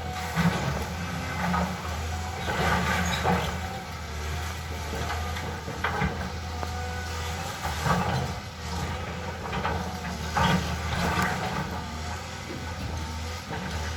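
Caterpillar excavator's diesel engine running steadily, with short louder knocks and scrapes every one to three seconds as the machine works.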